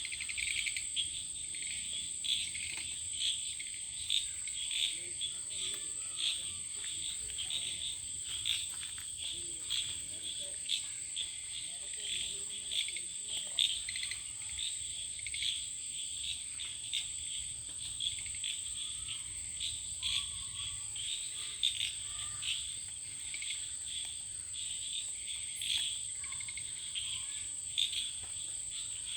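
Night ambience of crickets: a continuous high-pitched trill with many short chirps repeating irregularly over it.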